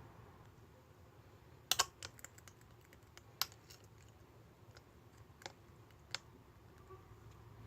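Slime being squished and pressed by hand, giving irregular sharp clicks and pops: a double pop near 2 seconds in, then single ones at intervals.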